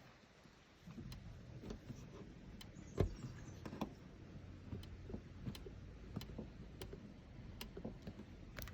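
Ferrari 458 Spider's folding hardtop rattling: irregular light clicks and ticks, roughly one or two a second, with a sharper knock about three seconds in, over a low rumble.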